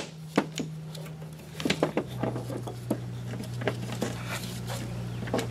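Metal parts of a disassembled Hydro Gear PW hydrostatic pump being handled and moved, giving scattered light clicks and clinks, over a steady low hum.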